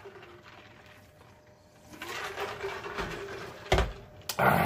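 A man drinking from a large plastic tumbler, with soft gulping and swallowing noises, then a sharp thump about three and a half seconds in and a short, loud burst of breath-like noise near the end.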